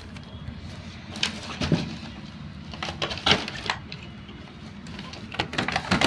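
Cardboard box and plastic packaging being handled as a toy RC car is worked out of its box insert: a scatter of sharp crackles and knocks, with a cluster near the end.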